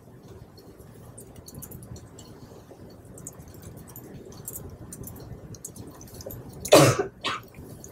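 Typing on a laptop keyboard: faint, irregular key clicks, with a brief louder noise about seven seconds in.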